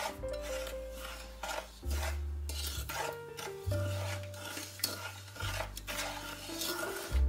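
Wooden spoon stirring sugar and water in a stainless steel saucepan, repeated scraping strokes against the pan bottom, about one or two a second. Background music with sustained notes plays along.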